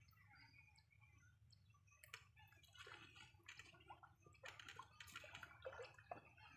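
Near silence: faint outdoor background with soft, irregular clicks and rustles starting about two seconds in.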